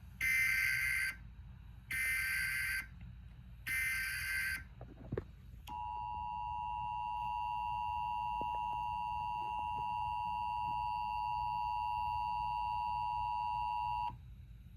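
Emergency Alert System SAME header: three raspy digital data bursts of about a second each, then the EAS two-tone attention signal held steady for about eight seconds and cutting off abruptly. Together they mark the start of an emergency alert broadcast.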